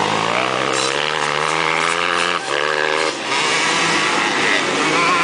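Dirt bike engines running hard on a motocross track. The engine note climbs as a rider revs up, then breaks off briefly twice, about two and a half and three seconds in.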